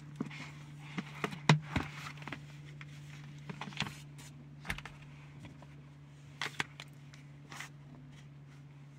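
Scattered light clicks and knocks of a plastic tub and its lid being handled, with a sharper knock about a second and a half in, over a steady low hum.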